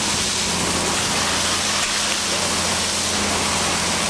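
Boat underway: a steady rush of water along the hull over the low hum of its engine.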